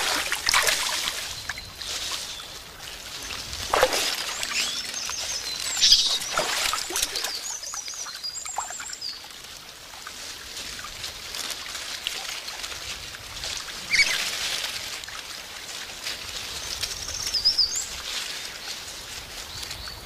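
Water splashing in a shallow stream as juvenile Japanese macaques play in it, in several separate bursts over a steady running-water hiss. Small birds chirp briefly now and then.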